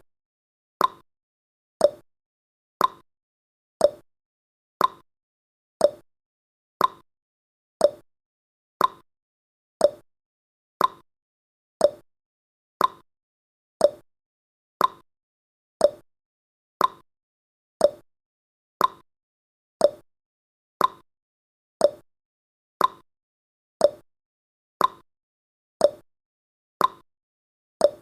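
Countdown timer's ticking sound effect: one short, sharp tick each second, evenly paced.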